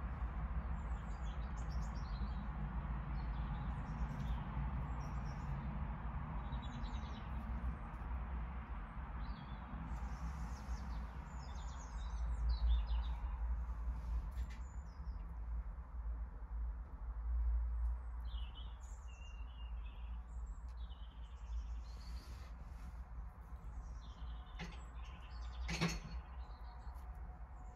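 Small birds chirping repeatedly in short high calls over a low steady rumble, with one sharp click near the end.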